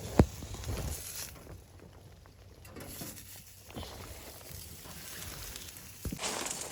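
A sharp, loud knock just after the start and a smaller one about six seconds in, over light rustling and crackling.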